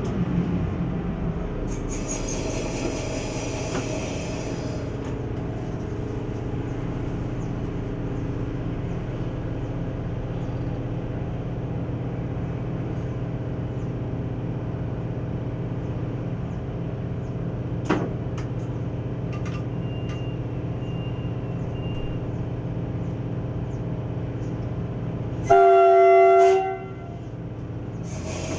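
ATR 220 diesel multiple unit running steadily, its engine drone heard from the driver's cab, with a single click midway. Near the end the railcar's horn sounds once in a loud blast of about a second.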